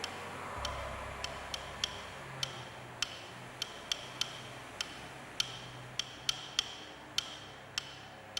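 Sharp, dry ticking clicks, one every third to half of a second on an uneven beat, over faint low sustained tones.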